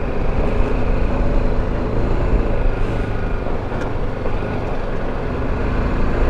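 BMW G310GS motorcycle's single-cylinder engine running steadily as the bike rides along at an even pace, with wind and road rush over the rider-mounted microphone.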